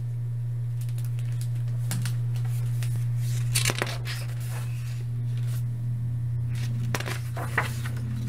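Pages of a hardcover picture book being opened and turned, with short paper rustles about three times, over a steady low hum.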